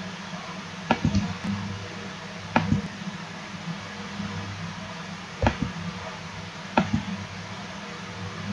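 Computer mouse clicking: four short double clicks spread over several seconds, over a steady low hum.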